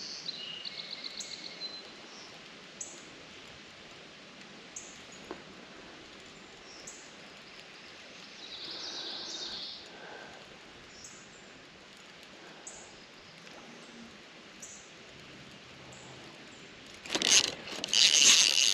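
Birds chirping with short calls every second or two over a quiet outdoor background. In the last second or so, a loud burst of rapid clicking from a baitcasting reel as a hooked fish pulls against the rod.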